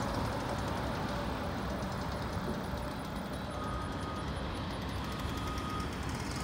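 Heavy construction machinery running steadily at a distance, a low, even engine noise. From the middle on, a faint beep sounds three times, each lasting well under a second.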